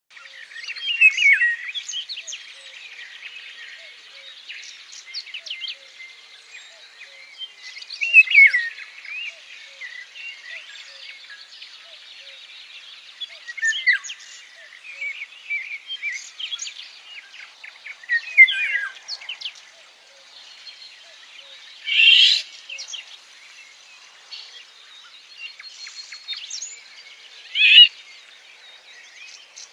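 Songbirds singing and chirping, with a louder burst of song every few seconds over a steady high background hiss.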